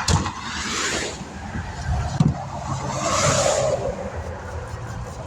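Interstate traffic passing close by: one vehicle rushes past at the start and another swells past about three seconds in, with a sharp knock a little after two seconds.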